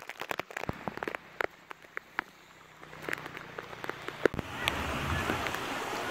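Heavy rain falling, with single drops striking close by as sharp, irregular ticks over a steady hiss. The hiss grows fuller and louder about four and a half seconds in.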